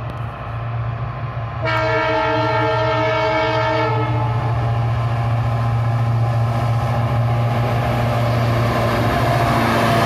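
GE WDG-4G (ES43ACmi) diesel-electric freight locomotive approaching with its 12-cylinder turbocharged GEVO engine running in a steady low drone. About two seconds in, its multi-tone air horn sounds one long chord of a little over two seconds. The engine grows louder near the end as the locomotive draws close.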